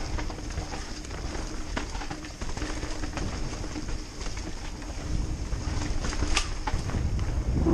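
Mountain bike rolling fast down a dirt forest trail: the tyres rumble over the ground and the bike rattles with sharp clicks and knocks. Wind noise on the microphone builds toward the end.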